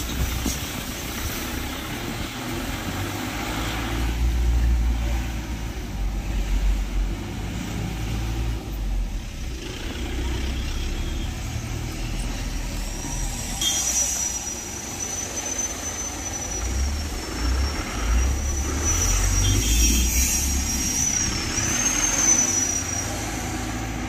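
Car climbing a steep road in second gear, heard from inside the cabin: engine and road noise with a low rumble that swells and fades. A thin high whistle runs through the second half.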